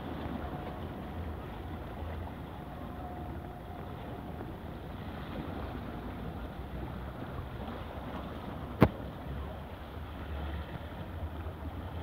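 Wind noise on the microphone over small waves washing against shoreline rocks, with one sharp click about nine seconds in.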